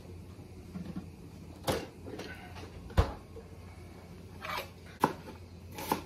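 A few separate knocks and clicks of utensils being handled on a kitchen counter, the loudest about three seconds in. Near the end, a large kitchen knife knocks down twice on a wooden cutting board as it starts cutting through a cooked tuna steak.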